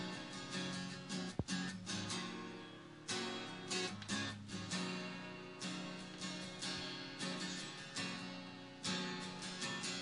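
Acoustic guitar played with a pick: chords and notes struck about one to two times a second, each ringing and fading before the next. A single sharp click about a second and a half in.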